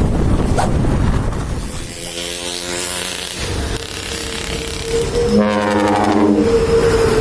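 Dump truck's ship-style air horn ('terompet kapal') blowing chord blasts over the noise of the truck going by: one blast about two seconds in, another about five and a half seconds in, then a single steady horn tone held toward the end.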